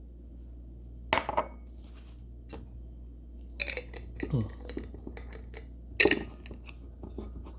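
Glass Snapple bottle handled and set down on a hard surface: a sharp knock about a second in and another about six seconds in, with small clinks in between.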